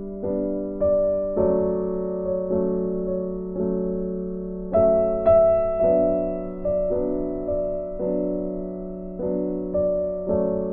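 Background piano music: slow, gentle notes and chords, each struck and left to ring and fade before the next.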